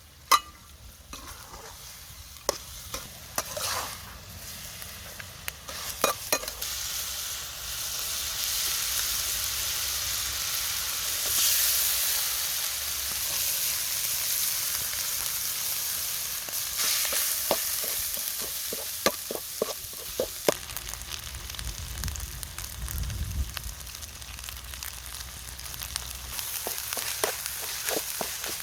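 Food sizzling in hot oil in a pan, stirred with a utensil that clicks and scrapes against the pan now and then. The sizzle swells about six seconds in and eases off in the last third.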